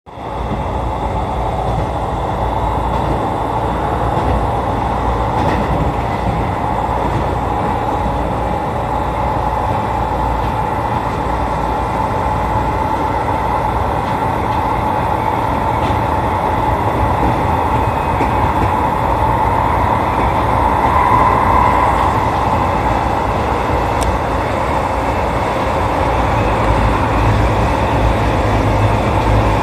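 Electric commuter train running along the track, heard from inside the front car: a steady rumble of wheels on rail with a whine that swells briefly about two-thirds of the way through.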